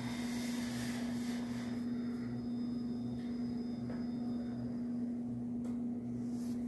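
FlexiSpot Pro Plus (E7) electric standing desk's lift motors running as the desk rises to its stored standing height: a quiet, steady hum with a faint high whine that stops about five seconds in.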